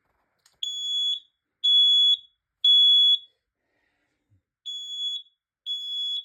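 A smoke alarm sounding its three-beep evacuation pattern: three high-pitched beeps of about half a second each, a pause, then the next group of beeps begins. This is the bedroom detector set off with its test button, showing that it works.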